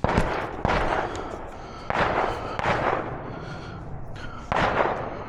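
Gunshots, about five, at uneven intervals, each followed by a long rolling echo.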